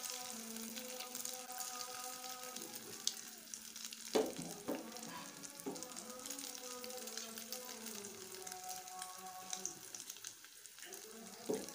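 Egg with tomato, chilli and onion frying in oil in a steel pan over a low gas flame: a steady, crackling sizzle. A couple of sharp knocks come about four seconds in.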